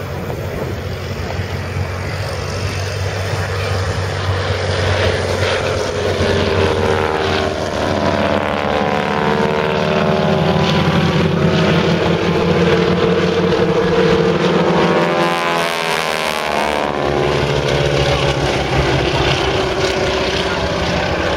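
Propeller biplanes' radial engines droning in a flypast, the sound swelling to its loudest about two-thirds through, then dropping slightly in pitch as the aircraft pass.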